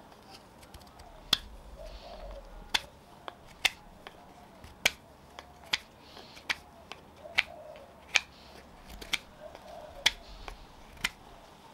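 Carving knife taking cuts from a blank of nectarine wood: a crisp snap about once a second as each shaving comes off, about a dozen in all.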